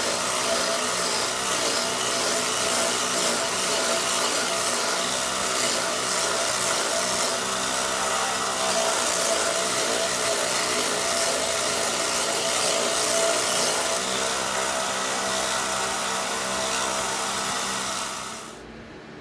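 Bench belt sander running while a strip of oak is pressed against the belt: a steady motor hum under the rasp of wood being sanded. The sound drops away sharply near the end.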